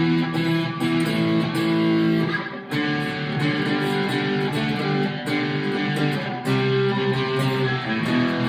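Fender California Malibu acoustic-electric guitar strummed through a Harley Benton Tube 15 valve amp, a series of chords each struck and left to ring.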